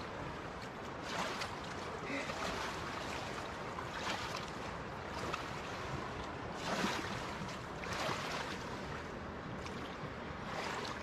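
Water splashing in short, irregular bursts as a large fish thrashes in shallow water while held by hand, over a steady rushing noise.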